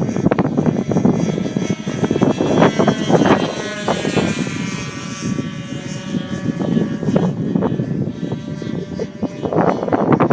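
Radio-controlled P-38 Lightning twin-engine model plane flying, its engine and propeller tone dropping in pitch about four seconds in as it passes, then holding steady.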